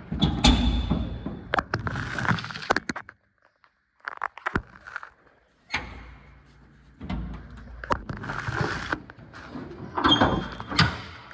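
A 1967 Chevrolet Camaro's steel hood being worked open: repeated metallic clunks and rattles of the hood latch and hood, coming in several bunches with a short quiet gap about three seconds in, and a brief high squeak near the start and again near the end.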